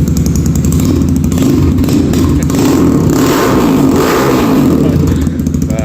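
Kayo T2 dirt bike's engine running loud, revved up about a second in and held for a few seconds, then easing back.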